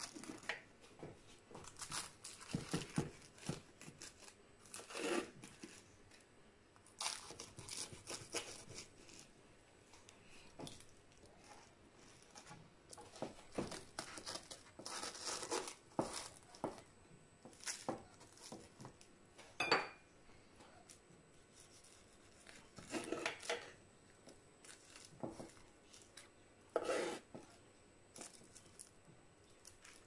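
A knife cutting through the crisp baked pastry crust of a pie on a metal baking tray: a run of irregular crackling, tearing strokes, with one sharp clink a little before the twenty-second mark as metal strikes the tray.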